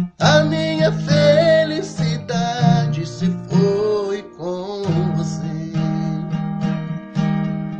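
Sertanejo song on a strummed acoustic guitar (violão). A voice sings a held, wavering line for the first four seconds or so, then the guitar carries on alone.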